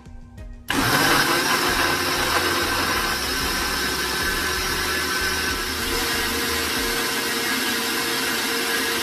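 Countertop jug blender switched on about a second in, its motor running steadily as it blends chopped papaya with a little liquid into a purée.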